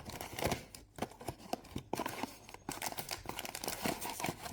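A cardboard blind box being torn open by its pull tab: packaging crinkling and tearing in a run of small crackles and ticks.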